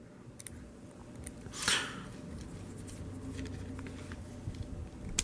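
Faint handling of small plastic action-figure parts: a few light clicks and one brief scrape or rustle about two seconds in, over a steady low room hum.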